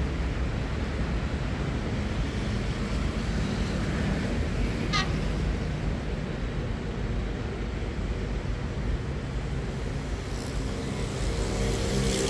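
Diesel railway engine running with a steady low rumble, growing louder near the end as its engine tones rise. A brief sharp sound about five seconds in.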